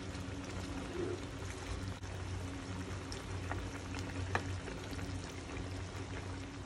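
Broth and chicken pieces sloshing in a pot as they are stirred with a wooden spatula, with a few light knocks between about three and four and a half seconds in, over a steady low hum.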